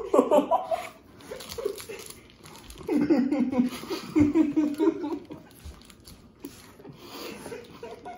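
Teenage boys laughing and giggling, muffled and stifled while one has a mouthful of dry granola bar, in two bouts, at the start and again about three seconds in, over scattered crackly rustling.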